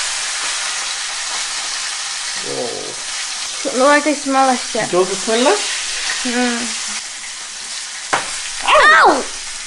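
Beef sirloin steak sizzling in butter and oil in a frying pan, with tongs shifting the pieces to sear the fat edge. A few short pitched vocal sounds break in over the sizzle about midway and again near the end.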